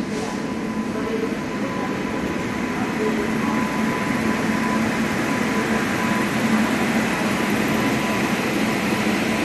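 Electric locomotive rolling slowly past on the track below: a steady running noise with a thin, even whine, growing a little louder as it comes by.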